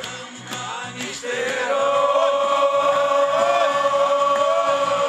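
A group of football supporters singing a terrace chant together on long held notes. The singing dips for the first second or so and comes back strongly about a second and a half in, with short lifts in the tune.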